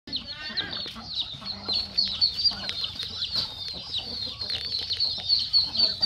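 A flock of chickens clucking, over a constant stream of high, quick peeping from chicks.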